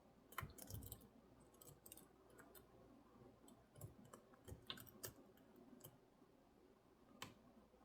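Faint, irregular small clicks and ticks of a lock pick and tension wrench probing the pins inside a Master Lock 410 LOTO padlock.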